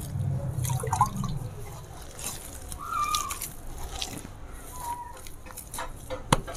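Hands kneading wet clay mixed with fine straw chaff, making squelching and rustling noises. A bird chirps twice in the background, and a sharp click comes near the end.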